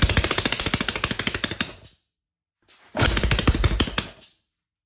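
Homemade 3D-printed 180cc four-stroke single-cylinder engine running in fast, even firing pulses. It runs for about two seconds, cuts off suddenly, then runs again for about a second and a half.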